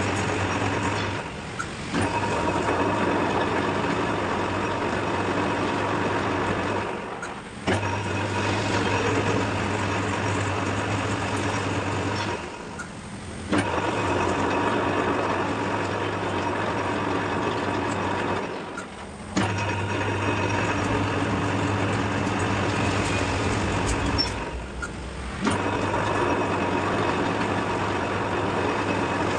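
Metal lathe turning the built-up axle end to cut a new thread. Its motor runs steadily and stops briefly about every five to six seconds, with a click each time it starts again.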